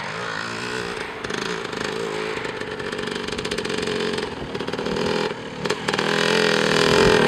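Dirt bike engine revving up and down as it rides through soft sand, getting louder near the end, with a brief drop in the engine note about five and a half seconds in.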